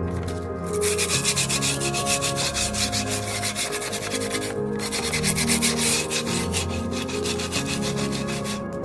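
Quick, steady back-and-forth hand sanding strokes, with a brief pause about halfway, over background music.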